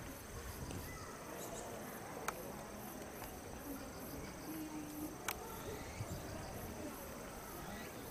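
Crickets chirping: a steady high-pitched trill with an even pulsing above it, over faint background voices. Two sharp clicks, about two and five seconds in.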